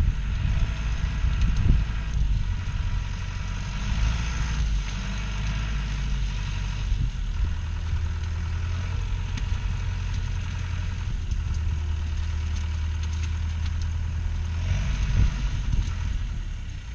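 Bulldozer's diesel engine running steadily, a little louder and more uneven in the first couple of seconds.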